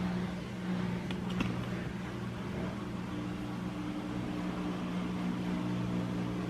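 1985 Casablanca Zephyr ceiling fan running, its motor giving a steady hum, with a couple of light clicks about a second in.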